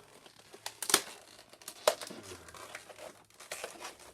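Toy packaging crinkling and tearing as it is pried open by hand, with two sharper snaps about a second and two seconds in.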